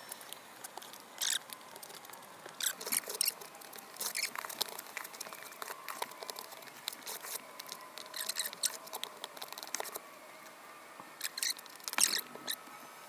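Putty knife spreading and scraping thick water-putty filler over cracks and holes in a wall, in irregular short scratchy strokes with brief pauses between them.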